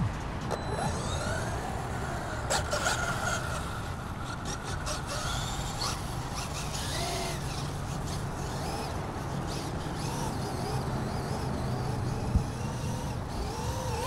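Traxxas UDR RC truck's electric motor whining up and down several times as the throttle is worked, driving over grass, with a low wind rumble on the microphone and a single sharp knock near the end.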